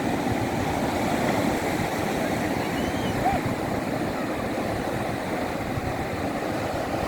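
Surf of a rough sea washing on the beach: a steady rushing noise.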